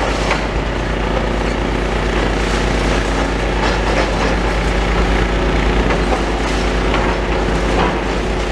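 Demolition excavator's diesel engine running steadily, with scattered knocks and clatter as it breaks into the building.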